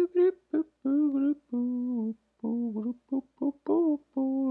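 A person humming a wordless tune, a run of short held notes that step up and down in pitch.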